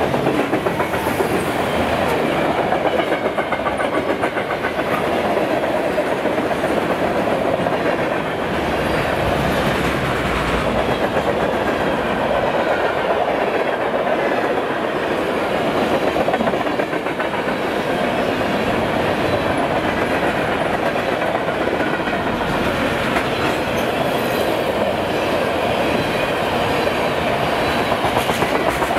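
Freight cars (tank cars, boxcars and covered hoppers) rolling past: a steady, loud rumble of steel wheels on rail with continuous clickety-clack as the wheels pass over the rail joints.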